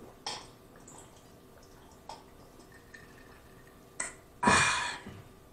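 A man drinking cold water from a glass, with soft gulping and swallowing clicks, then a loud breathy 'ahh' after the drink, about four and a half seconds in.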